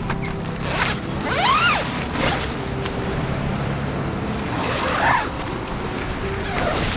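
A dome tent being handled and its door unzipped, with rustling fabric and short squeaky creaks, over soft background music with held notes.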